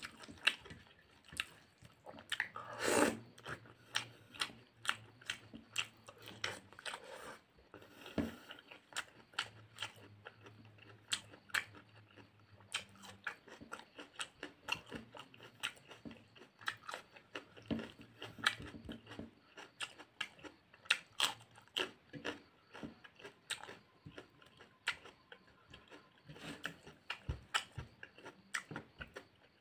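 Close-miked chewing of a hand-eaten meal of rice, curry and raw onion: a dense run of sharp mouth clicks, with a louder noise about three seconds in.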